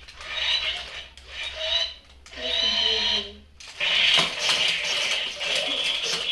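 Remote-controlled toy fighting robots driving and battling: their small gear motors whir in stop-start bursts of about a second, turning steadier about two-thirds of the way in, with light plastic clacking.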